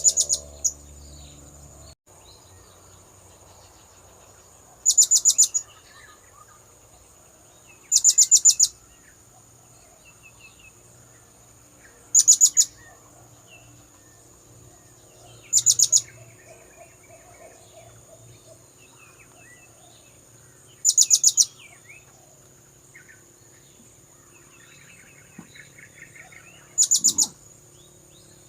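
Blue-crowned hanging parrot (serindit) lure call: short bursts of rapid, shrill, high-pitched notes, each about half a second long, repeating every three to six seconds. A steady high-pitched whine runs underneath.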